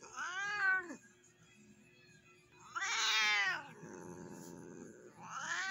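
Tortoiseshell cat meowing three times in drawn-out calls that rise and fall in pitch, the middle one loudest. A fainter low, rough noise follows the middle call for about a second and a half.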